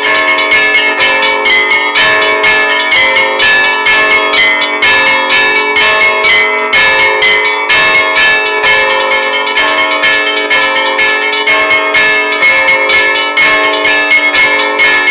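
Russian Orthodox church bells rung in a rapid, continuous peal: many quick strikes a second, their tones overlapping and ringing on.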